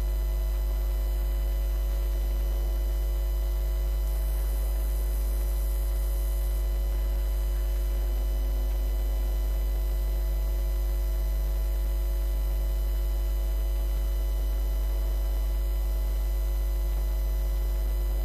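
Steady electrical mains hum: a strong, unchanging low drone with a row of fainter steady tones above it.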